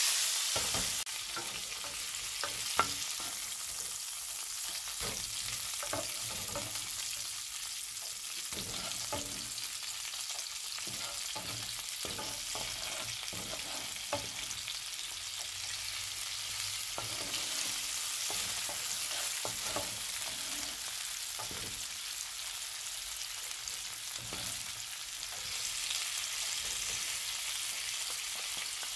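Cauliflower steak and chopped garlic sizzling steadily in hot olive oil in a frying pan. A wooden spatula taps and scrapes against the pan now and then, with one sharp tap about three seconds in.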